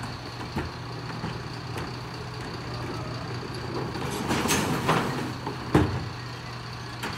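Mercedes-Benz Econic bin lorry idling with its Terberg OmniDEL rear bin lift working, a steady low hum with a steady high tone over it. A rush of noise a little past four seconds in and a sharp knock just before six seconds come as a wheelie bin is raised and tipped into the hopper.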